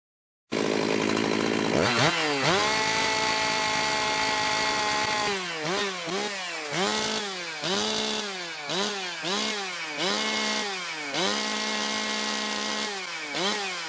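Freshly rebuilt two-stroke chainsaw running on its third break-in heat cycle. It cuts in abruptly, picks up to full throttle and holds there for about three seconds, then is revved up and down over and over, each rev rising sharply and falling back.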